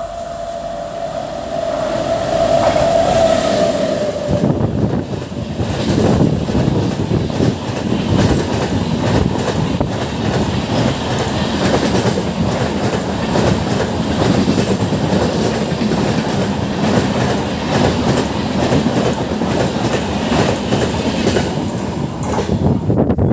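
A WAP-7 electric locomotive's horn holds one long steady tone, ending about four seconds in. Then the LHB passenger coaches run through at speed, their wheels clattering and rumbling steadily over the rail joints.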